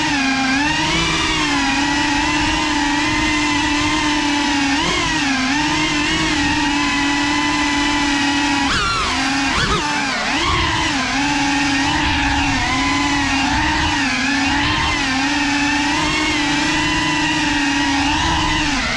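Small FPV quadcopter's electric motors and propellers whining steadily, the pitch dipping and rising again with each throttle change, most unsettled about halfway through.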